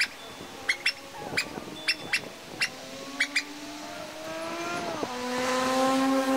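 Short, sharp bird calls repeated several times, then a passing motor vehicle's engine that grows louder over the last couple of seconds, its pitch dropping once about five seconds in.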